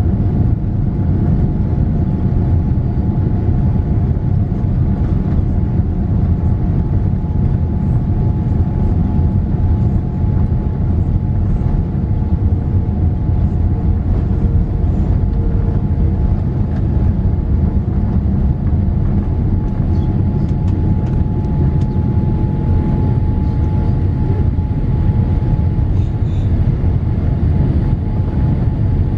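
Boeing 787-8 jet engines and airflow heard from inside the passenger cabin: a steady, loud rumble with a faint steady whine above it.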